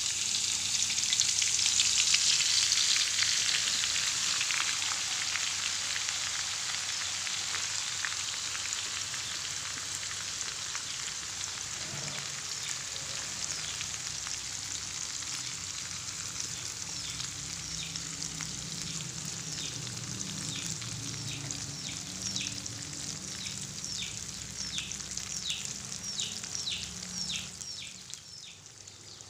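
Sliced shallots deep-frying in hot oil in a wok: a loud, steady sizzle, strongest in the first few seconds after they go in and easing gradually. Toward the end, separate crackles and pops stand out several times a second.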